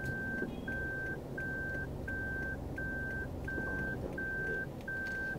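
A car's electronic warning beeper sounding a steady string of identical high beeps, about three every two seconds, each beep a little longer than the gap after it. Under it is the low hum of the car's cabin.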